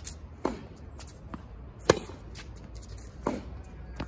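Tennis rally: a sharp racket-on-ball strike close by just under two seconds in, with softer, more distant hits from the far end of the court about half a second in and again after about three seconds.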